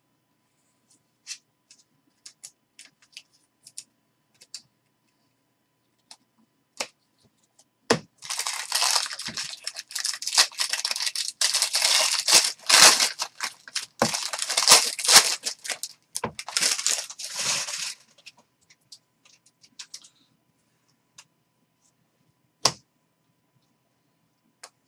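A foil trading-card pack wrapper being torn open and crinkled, a dense crackling that lasts about ten seconds in the middle. Light ticks come before and after it, with one sharp click near the end.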